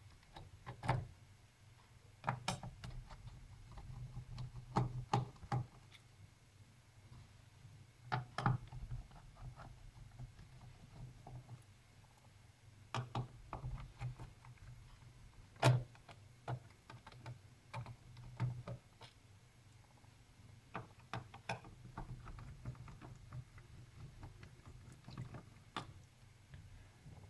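Scattered light clicks and knocks of a small screwdriver and fingers working the screws and plastic case of a netbook, at irregular intervals, with one sharper click a little past the middle. A faint low hum runs underneath.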